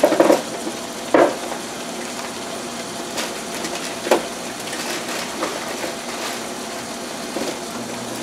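Ground beef sizzling steadily as it browns in a large stockpot on a gas burner, with a few short knocks in the first half.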